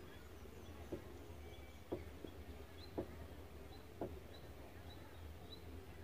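Footsteps on dry mud and sand, about one a second, over a steady low rumble. Faint high bird chirps repeat quickly from about halfway through.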